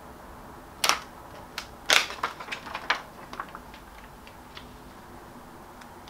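Crisp clicks and crackles of a heat transfer vinyl sheet's plastic carrier being handled and laid onto a shirt. They come in a cluster from about one to three seconds in, the loudest near two seconds.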